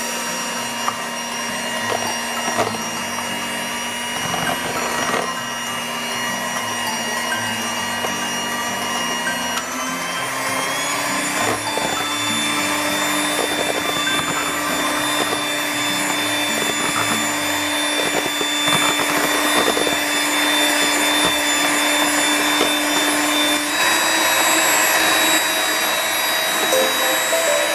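Electric hand mixer running steadily, its beaters whipping a pink ice cream batter in a bowl. Its whine steps up in pitch about ten seconds in and changes again near the end.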